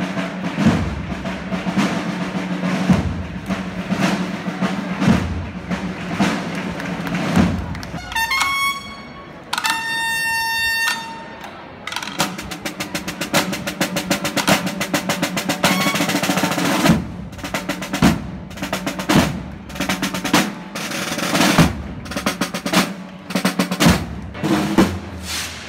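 Marching drum corps of snare drums playing fast rolls and beats. About eight seconds in the drumming breaks for a short high note and then a longer held one, before the drums start up again.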